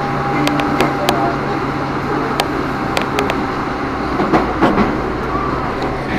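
KRL Commuterline electric train running, heard from inside the passenger car: a steady rumble with a low hum, and several sharp clicks in the first half.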